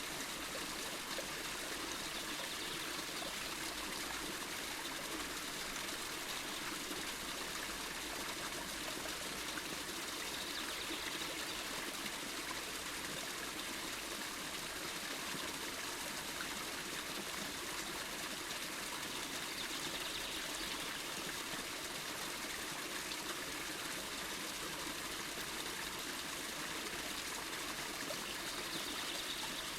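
Water running and trickling steadily, like a small stream or cascade, an even continuous rush.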